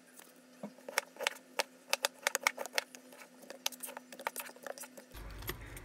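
Knife cutting watermelon into chunks: irregular crisp clicks and taps of the blade through the juicy flesh and against a plastic container, over a faint steady hum.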